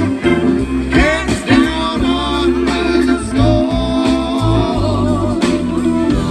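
Live band music: electric guitar bending and sliding notes over bass and drums, with singing.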